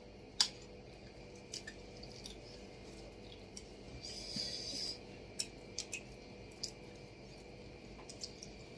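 Quiet eating sounds: scattered small clicks and taps of a steel spoon and fingers against plates and bowls, with a brief soft hiss about four seconds in.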